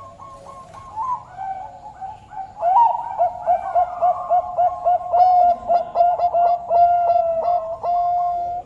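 Bangkok perkutut, a zebra dove bred for song, cooing: a few clear held notes, then from about three seconds in a rapid run of short coos, three or four a second, ending on a long held note.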